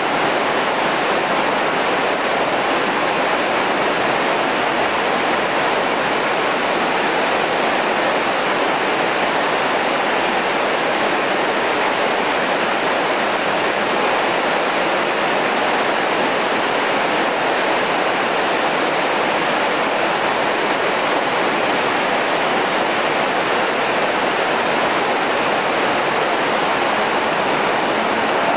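Steady rushing of the Arize river flowing through the cave, an even noise that holds at one level throughout.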